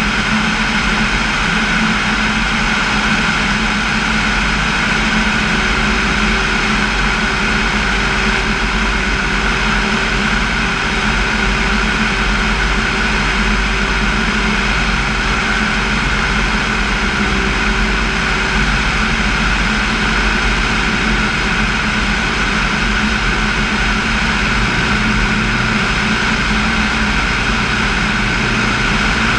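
Single-engine light airplane in flight: the piston engine and propeller make a steady, unbroken drone mixed with wind rush, heard from outside the fuselage under the wing. A faint extra tone joins in for about the first half and then fades out.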